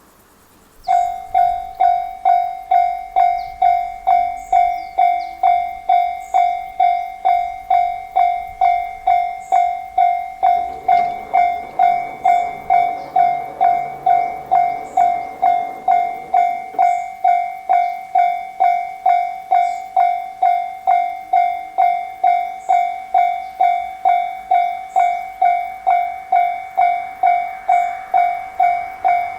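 Japanese railway level-crossing warning bell starting about a second in and ringing steadily at about two strikes a second, the alarm that a train is approaching the crossing.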